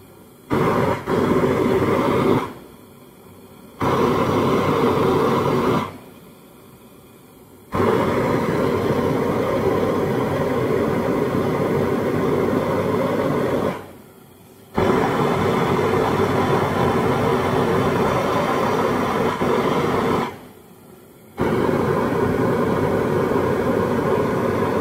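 Large-nozzle propane plumbing torch burning with a loud, steady rushing noise as it heats copper for brazing. The noise comes in five stretches of a few seconds each, cutting out abruptly for about a second between them.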